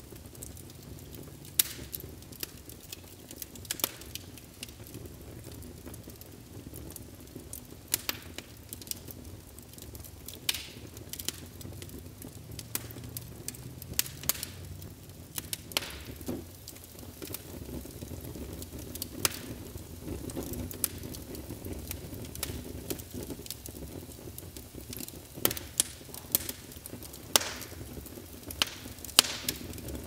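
Wood fire crackling in a fireplace: irregular sharp pops over a steady low rumble of the flames.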